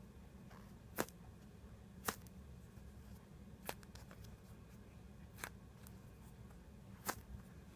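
Five sharp, separate clicks, one to two seconds apart, over a faint low hum.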